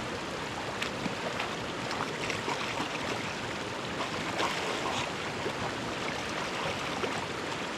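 Mountain stream rushing steadily, an even wash of flowing water with a few faint ticks in it.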